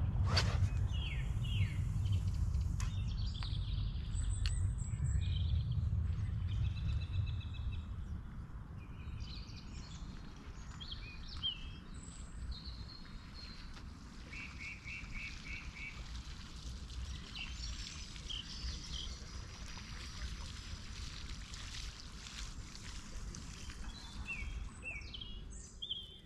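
Small birds chirping and calling at intervals over a low wind rumble on the microphone, which dies away after about eight seconds. A single quick swish comes right at the start as a fishing rod is cast.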